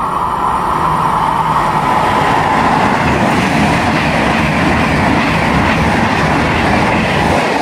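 Electric passenger train running past close alongside the platform: a steady loud rush of wheels on rails, with a high whine over it in the first couple of seconds.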